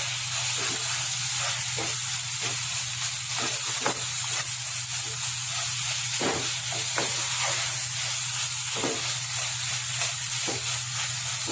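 A thick spiced paste of ground moong dal, onion, ginger and garlic sizzling in hot oil in a kadai, with a steady hiss. It is being stirred, and a spoon scrapes and taps the pan every second or so.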